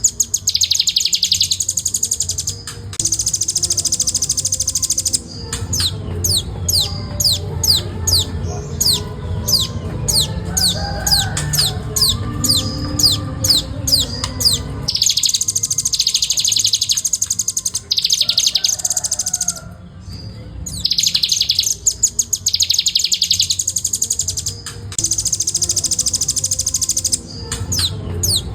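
Velvet-fronted nuthatch singing a rapid, continuous song: very fast buzzy trills alternate with long runs of sharp, quickly repeated descending notes, about three or four a second.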